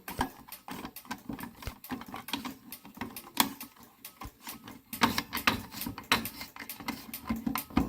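Irregular clicking and rattling of a fire alarm pull station being worked with a small screwdriver-type reset tool, as its reset mechanism is fiddled with and does not catch at once.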